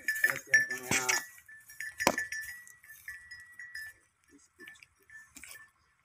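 Farm livestock calling in the first second, a sharp knock about two seconds in, and a high clinking tone repeating at one pitch throughout.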